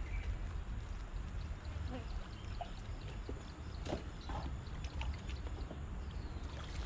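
Steady low wind rumble on the microphone, with a few short splashes and knocks near the middle as a hooked fish thrashes at the water's surface.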